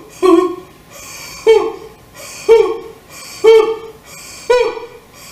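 A woman's voice singing short, detached 'hoh' notes on about the same pitch, roughly one a second, each struck with a sharp, breathy attack. This is a breath-support exercise, each note bounced out from the lower abdominal muscles.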